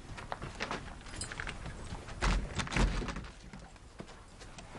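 Footsteps and shuffling on a sandy courtyard floor, irregular knocks and scuffs, with two heavier thumps between two and three seconds in.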